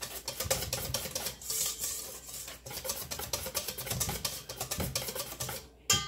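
Wire whisk beating batter in a stainless steel mixing bowl: a rapid, continuous stream of clicking, scraping strokes of the wires against the metal.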